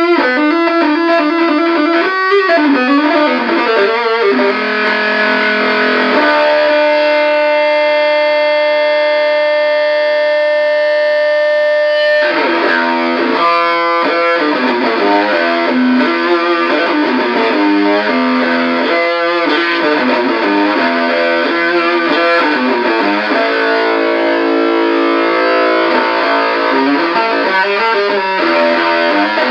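Electric guitar played through a Muff Fuzz–style 1458 op-amp fuzz pedal into a 1959 Guild 66-J amplifier: distorted, fuzzy notes and riffs. About six seconds in, a chord is held ringing for several seconds before the playing picks up again.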